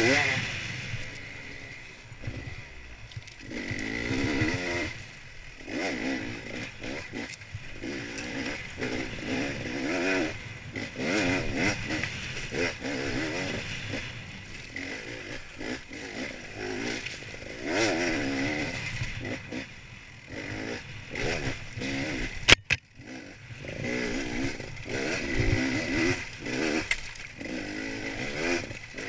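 Enduro motorcycle engine revving up and down over and over as it is ridden hard along a dirt trail, with wind noise. A single sharp crack about three-quarters of the way through is the loudest moment.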